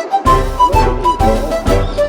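Background music with a steady beat, about two beats a second, under a light melody.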